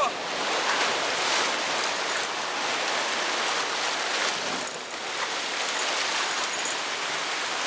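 Whitewater rapids rushing and splashing around a rubber raft: a steady hiss of churning river water.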